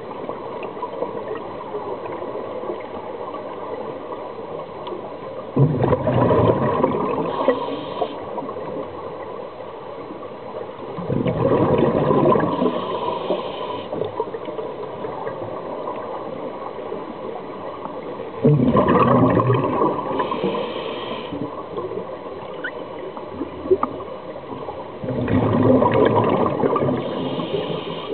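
Scuba diver breathing through a regulator, heard underwater: four loud, gurgling bursts of exhaled bubbles, each about two seconds long and six to seven seconds apart, with a faint high hiss between them.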